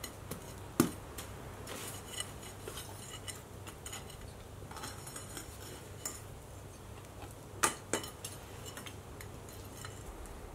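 A steel rod digging and scraping through the casting sand of a broken-open sand mold, breaking out a failed aluminium casting, with scattered light clinks and two sharp knocks, about a second in and again near eight seconds.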